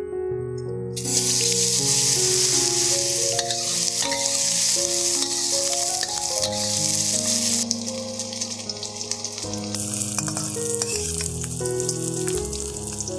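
Mutton pieces dropped into hot oil in a steel wok start sizzling about a second in and keep frying while a metal spatula stirs and scrapes them, with occasional clicks. Background music plays underneath.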